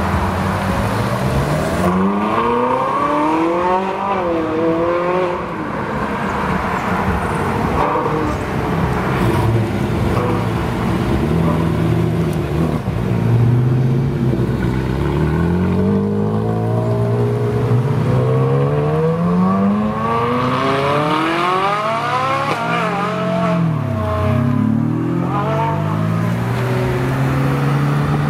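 Several Ferrari sports cars accelerate away one after another, their engines revving up through the gears. The pitch climbs and drops back at each shift, over and over.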